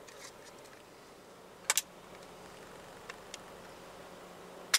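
Plastic housing of a removed 2006 Toyota Corolla clock spring being pried apart by hand, its retaining tabs snapping: one sharp snap a little under two seconds in, a couple of faint ticks, and another sharp click near the end.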